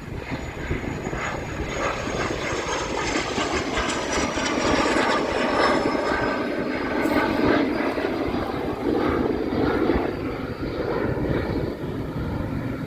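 Cessna Citation CJ1 business jet's twin turbofan engines running at high power, as on a takeoff from runway 05. A steady jet rush with a thin high whine that slowly falls in pitch, loudest around the middle.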